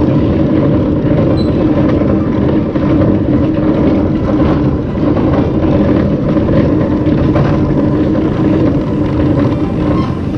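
Truck engine running with a steady, loud low rumble.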